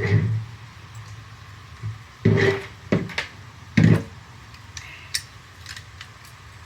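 Metal wrenches knocking and clinking against the air hose fittings as a new air coupler is tightened on: a few separate clanks, the loudest about two and a half and four seconds in, followed by lighter ticks.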